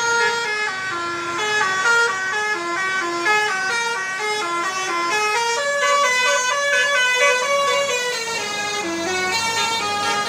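Tour bus's Basuri multi-trumpet musical horn playing a fast tune of short stepping notes, with the tune changing to lower notes about five and a half seconds in.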